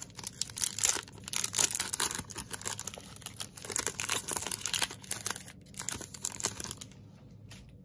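Foil wrapper of a baseball card pack being torn open and crinkled by hand, crackling irregularly, dying down about seven seconds in.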